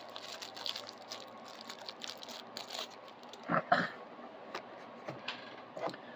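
Faint handling noise: light clicks and soft rustling of small plastic parts and packaging being handled, with a brief louder rustle about three and a half seconds in.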